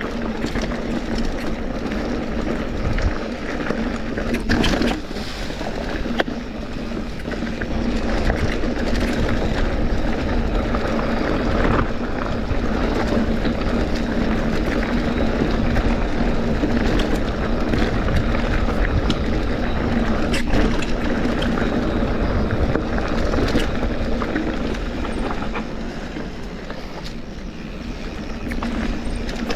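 Cross-country mountain bike rattling and knocking over a rocky trail: a steady rumble of tyres and frame on rock, with many scattered sharp knocks.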